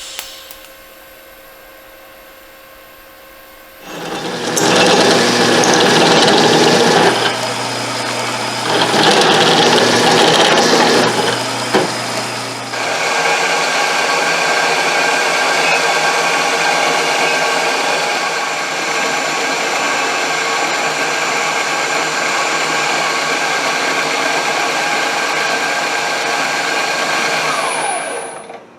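A power tool's electric motor starts about four seconds in and works metal in two louder, noisier spells. From about halfway through it runs on steadily with an even hum, then stops just before the end.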